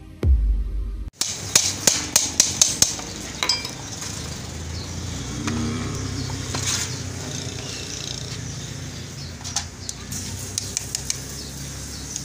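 An electronic music sting cuts off abruptly about a second in. Then metal hand tools knock and clink against a truck's wheel hub: a quick run of about eight sharp metallic knocks a second or two in, and a few lighter clicks near the end.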